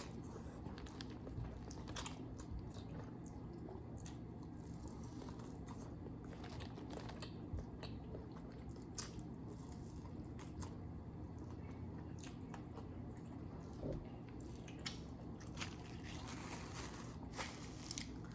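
Close-up eating sounds from a seafood meal of shrimp, crab legs and mussels: soft chewing and biting with scattered sharp clicks and cracks. The sounds are faint.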